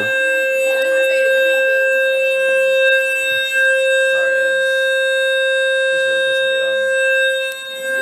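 Building fire alarm sounding a loud, steady, unbroken electronic tone made of several pitches at once, with faint voices under it.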